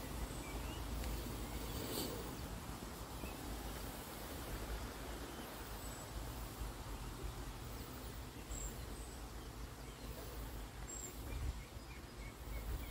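Quiet outdoor ambience: a steady low rumble on the microphone, with a few faint, short, high bird chirps scattered through and a single click about two seconds in.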